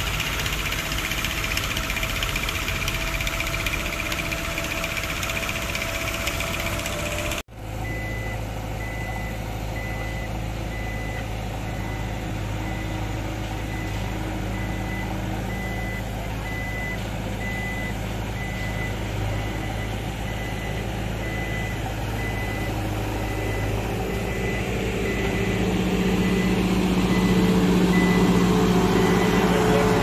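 Diesel engines of road-construction machines, a motor grader and a backhoe loader, running. The sound breaks off sharply about seven seconds in, and after that a steady engine hum carries a reversing alarm beeping evenly, over and over. The engine grows louder near the end.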